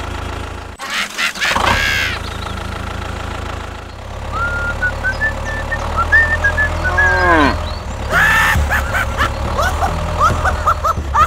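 Tractor engine idling steadily with a low hum. From about four seconds in, a string of squeaky chirps and gliding tones plays over it, coming faster near the end.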